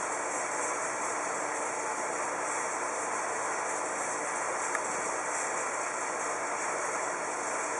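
Aquarium filtration running: a steady rushing hiss of water and equipment, with a faint click about five seconds in.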